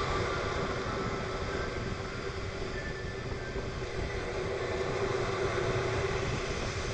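Steady rushing noise of storm waves breaking on the shore and gusty wind, with no clear single event.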